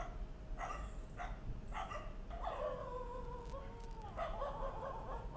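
Stray dogs barking in short calls, with one longer drawn-out cry lasting about a second and a half in the middle.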